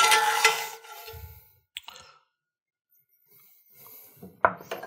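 Metal spoon scraping and clinking against a cast-iron skillet as pan sauce is scooped up, loudest in the first second with a brief ringing tone. This is followed by a few faint clicks and a light clink near the end.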